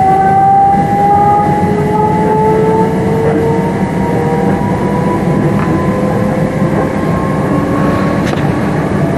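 Inside a c2c Class 357 electric multiple unit under way: steady rumble of the wheels on the track, with the electric traction motors' whine climbing slowly in pitch as the train picks up speed, then levelling off.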